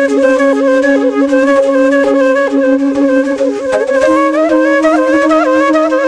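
Background music: a flute playing a quick, ornamented melody over a held low note, which steps up in pitch about four seconds in.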